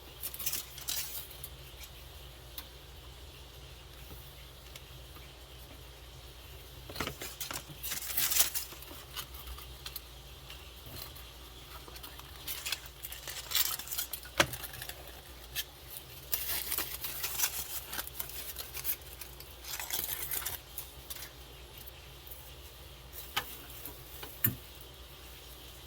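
Small metal and plastic parts and tools clinking, clicking and rattling as hands work on a Traxxas TRX-4 RC truck's drivetrain, in scattered bursts over a steady low hum.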